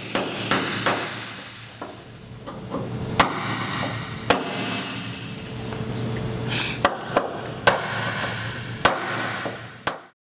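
Hangar workshop noise: about ten sharp bangs and knocks at irregular spacing over a steady background hum.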